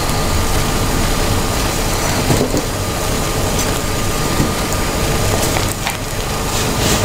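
A steady rushing noise with a few soft clicks and scrapes of a spoon against a glass bowl as a thick Nutella-and-hazelnut mixture is scooped into a mould.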